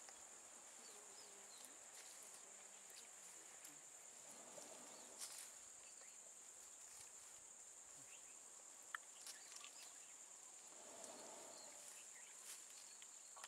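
Faint forest ambience: insects keep up a steady high-pitched buzz, with a few soft clicks.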